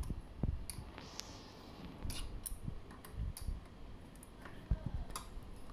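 Light, irregular metallic clicks and taps from work on an e-bike's rear disc brake caliper as its mounting screws are adjusted, with a few dull low knocks.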